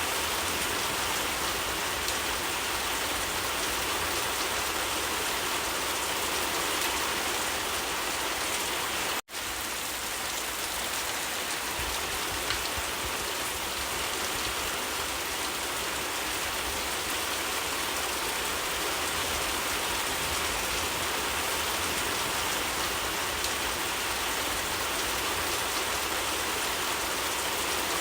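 Steady rain falling, an even hiss of drops, broken by a split-second gap about nine seconds in.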